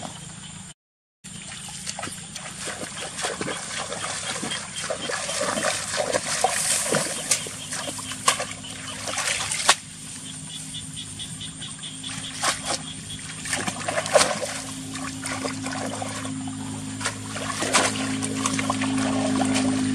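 Water splashing and trickling, with many small irregular splashes. The sound cuts out for about half a second near the start.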